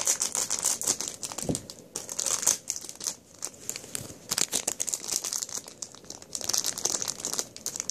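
Plastic packaging crinkling and rustling as it is handled, with many small sharp clicks.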